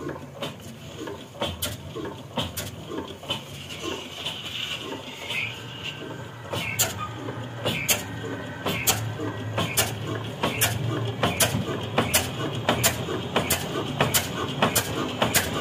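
Old 18 HP stationary diesel engine with a large flywheel, coming up to speed after starting. Its slow exhaust beats are sparse and uneven at first, then grow louder and more regular, reaching a little under two a second near the end.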